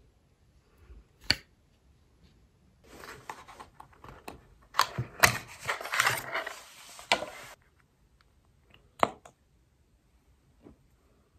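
Cardboard box of a lip tint being handled and opened, with packaging rustling. There is a sharp tap about a second in, then several seconds of rustling dotted with clicks, and one more sharp click later as the tint comes out.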